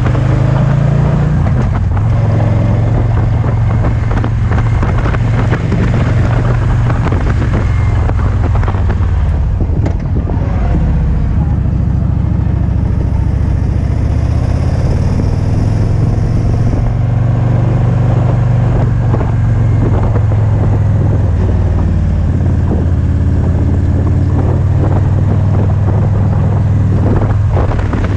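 2008 Victory Vision touring motorcycle's V-twin engine running steadily under way at cruising speed, a low rumble mixed with wind rushing over a helmet-mounted camera's microphone.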